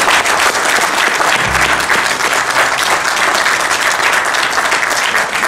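Audience applauding steadily after a spoken-word poem.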